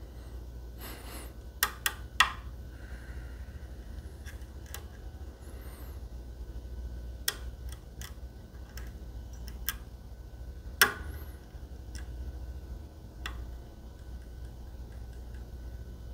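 A lock pick and tension wrench working in a Medeco lock cylinder: scattered sharp metallic clicks, three close together about two seconds in and the loudest near eleven seconds.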